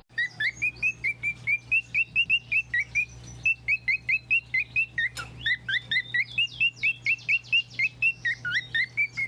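A bird giving a fast, steady series of short chirps, about four a second, with a brief break about halfway through. A low steady hum runs underneath.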